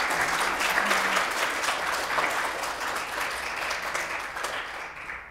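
Audience applauding, many hands clapping, the applause slowly thinning out and then cutting off sharply at the very end.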